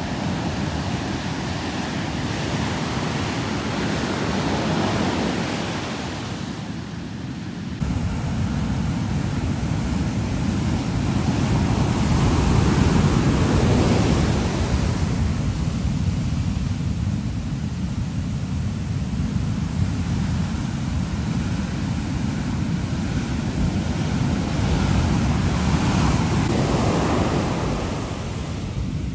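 Ocean surf breaking on a sandy beach: a steady rush of water noise that swells as each wave breaks and washes up the shore. About eight seconds in, the sound changes abruptly and gains a deep rumble of wind on the microphone.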